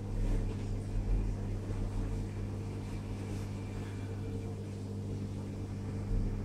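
Steady low electric hum of marine aquarium equipment such as the water pumps, with low rumbles in the first second or so and again near the end.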